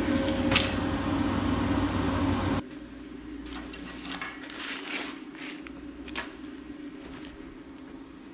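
Steady machine hum with a low drone and a few fixed tones, cutting off abruptly about two and a half seconds in. After it, a quieter background with a handful of light clicks and metal taps.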